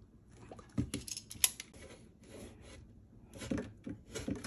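Fabric and a clear acrylic quilting ruler being shifted and pressed flat on a cutting mat: rubbing, scraping handling sounds in two spells, with a sharp click about one and a half seconds in.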